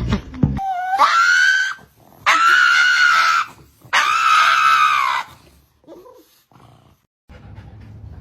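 A dog giving three long, high-pitched yowling calls in a row, each about a second long, bending up at the start and down at the end. Faint short sounds follow, then a low steady hum starts near the end.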